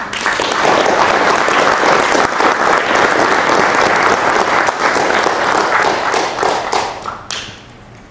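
Audience applause: many people clapping, starting all at once and dying away about seven seconds in, with a few last single claps.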